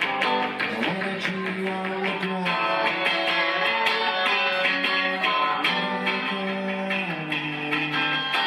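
Guitar strummed steadily in a live song, the chords changing every second or two, with no singing.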